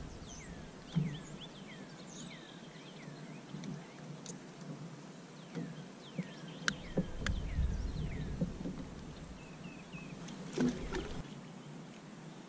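Small birds calling, a string of short falling chirps repeated every second or so. Two sharp clicks come about seven seconds in, and a dull knock near the end.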